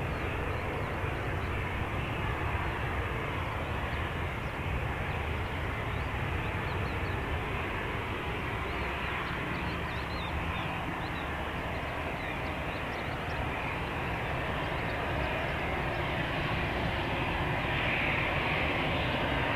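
Jet engine noise from an Airbus A320 airliner: a steady rush that grows a little louder near the end.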